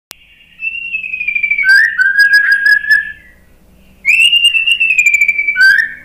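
White-rumped shama (murai batu) singing: two phrases of loud, clear whistled notes gliding down in pitch, laced with rapid high chips, with a pause of about a second between them.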